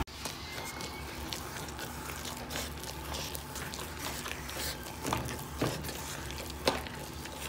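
Potato masher working through mashed potatoes in a pot, with a few light knocks of the masher against the pot, the clearest between about five and seven seconds in.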